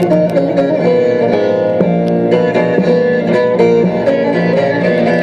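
Instrumental Turkish folk music on a plucked string instrument: quick runs of notes over a steady low drone.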